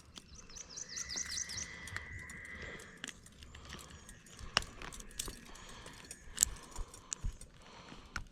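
Birds singing: a quick run of repeated high chirps early on, then a thin steady high note for about two seconds, with scattered small clicks and ticks throughout.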